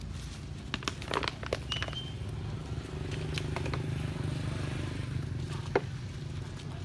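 A steady low rumble with scattered sharp clicks and rustles, and a brief high chirp about two seconds in.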